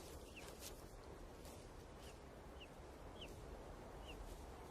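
Golden eagle chicks cheeping faintly in the eyrie while being fed: short, high, downward-sliding peeps about once a second over a low steady background hiss.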